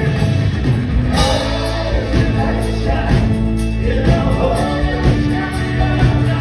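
Live rock band playing, with voices singing in harmony over electric guitar, bass, drums and keyboards, heard loud from beside the stage.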